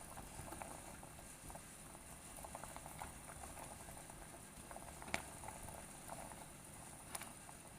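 Food cooking on the stove, bubbling softly with many faint irregular pops. Two sharper clicks come about five and seven seconds in.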